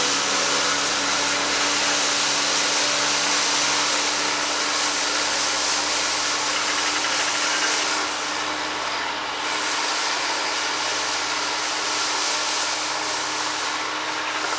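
Zetor 7011 tractor's diesel engine running under a steady hum while its front-mounted rotary brush sweeps snow off the road, making a loud even hiss. It grows a little fainter about halfway through as the tractor moves away.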